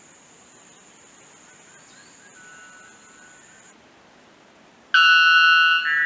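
White bellbird giving its loud two-note call about five seconds in: a long ringing note that runs straight into a second, higher one. Before it, only a thin steady high whine in the background.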